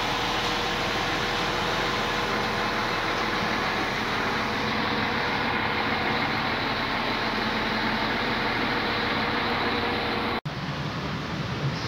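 Steady machine noise of a train at a station platform: an even rush with a faint hum, unchanging, that cuts off suddenly about ten seconds in and gives way to a lower hum.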